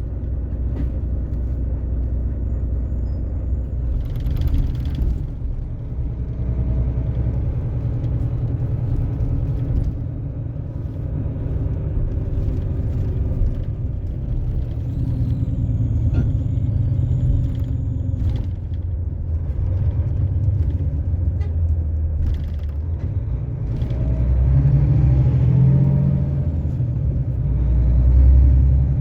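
Interior noise of a moving city bus: a steady low engine rumble and road noise, with the engine note shifting as the bus speeds up and slows. A short hiss comes about four seconds in, and the engine note rises and swells a few seconds before the end.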